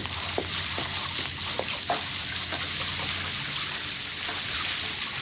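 Water running steadily, an even hiss.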